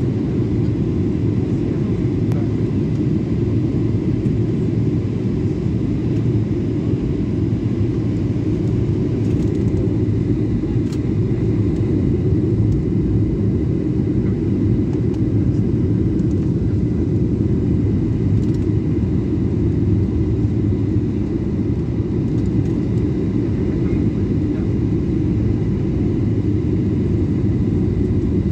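Boeing 737-800 cabin noise in flight: the steady, dense low rumble of its CFM56 engines and the airflow past the fuselage, with a faint high whine.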